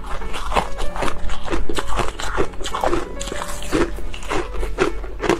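Frozen ice being crunched and chewed in the mouth: repeated sharp crunches, about two a second, over background music.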